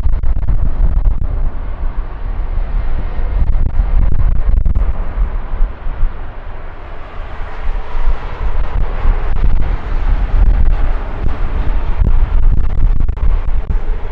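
Boeing 787-8 Dreamliner's jet engines at takeoff power, a loud, deep, steady rumble with wind on the microphone. It eases briefly about six seconds in, then swells again.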